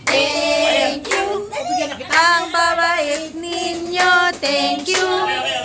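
A child singing a song in long held notes, with short breaks between them.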